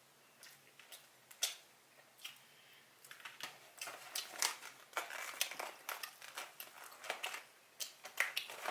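Eating sounds up close: chewing and mouth clicks on takeout food, sparse at first, then denser irregular crunching and crackling from about three seconds in.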